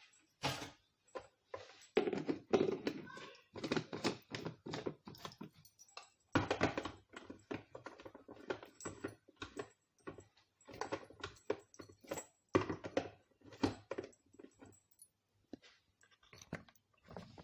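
Plastic blender jar knocking and clicking as it is handled and fitted onto the blender base, a run of irregular clatters and taps; the motor is not running.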